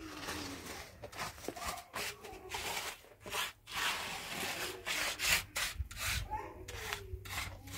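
Repeated rough scraping and rubbing strokes, irregular and broken by short pauses.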